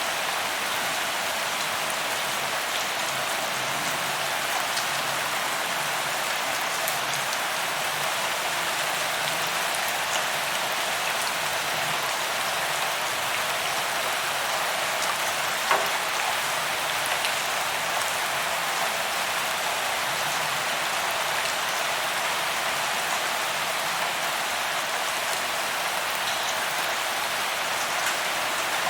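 Steady rain falling, an even hiss with scattered individual drops ticking through it and one sharper drop about halfway.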